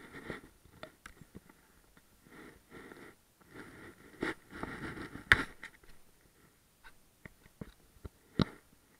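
A kitten scuffling with flat white string right against a small camera: stretches of rustling and scraping, broken by sharp knocks as its paws and body bump the camera, the loudest a little past five seconds in and another near the end.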